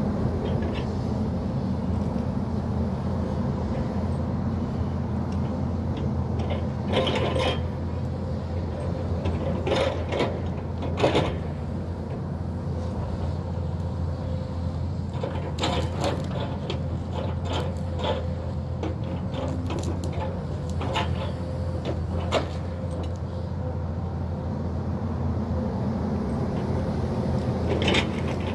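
Hyundai crawler excavator's diesel engine running steadily, with scattered sharp cracks and knocks, several around the middle and one near the end.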